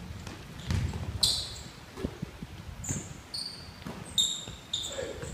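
A basketball dribbled on a wooden gym floor, giving irregular thuds. Sneakers squeak on the hardwood several times, in short high squeaks, mostly in the second half.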